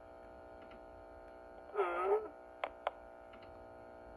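A short voice sound, a single syllable, about two seconds in, followed by two quick clicks, over a steady electrical hum.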